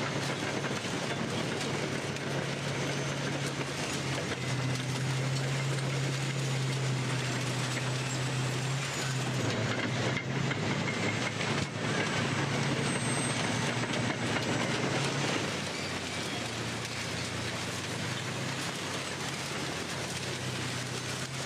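Bulldozer running and crushing motorbikes and scooters: a steady diesel engine hum under continuous loud metal crunching and clatter. The engine note drops a little about two thirds of the way through.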